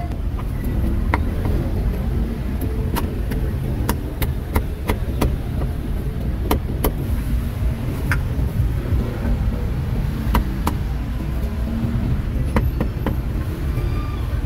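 Cleaver chopping meat on a round wooden chopping block: a string of sharp knocks at an uneven pace. Steady street-traffic rumble runs underneath.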